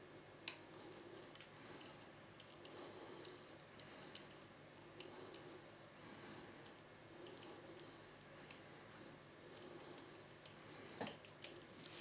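Faint, irregular metallic clicks and scrapes of a lock pick and tension wrench working the pins of a Medeco Original cylinder, with one sharper click about half a second in and a quick run of clicks near the end.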